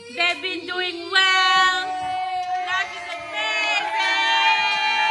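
A group of children's and women's voices singing and cheering together, with long held notes from about a second in.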